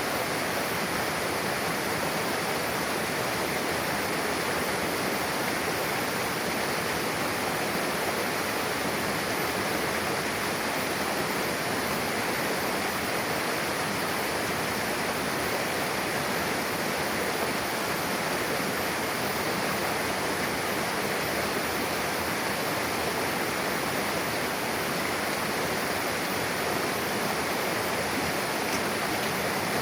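Mountain river flowing over rocks where two streams meet: a steady, full rush of running water.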